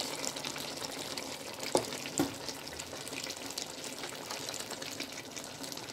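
Chicken frying in ghee in a karahi: a steady sizzle and crackle, with two sharp knocks about two seconds in.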